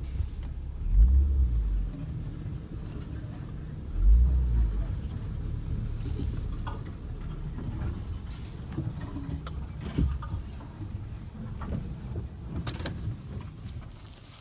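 Low rumble of a car heard from inside its cabin, with two louder low surges about a second and about four seconds in, and a few small knocks later on.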